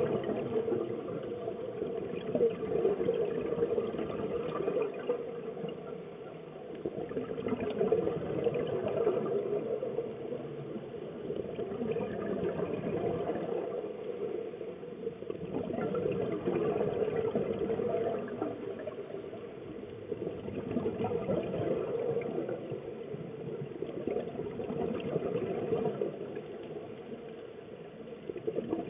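Muffled underwater noise from scuba diving, a steady wash that swells and fades every six or seven seconds with a diver's regulator breathing and exhaled bubbles.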